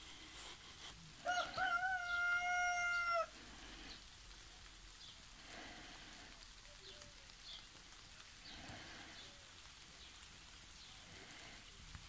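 A rooster crowing once: a single drawn-out crow of about two seconds, a little after the start, which ends abruptly. Faint small bird chirps over a soft outdoor hiss follow.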